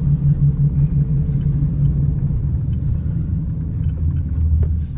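Car cabin noise while driving: a steady low rumble of engine and tyres heard from inside the taxi. The hum deepens about four seconds in.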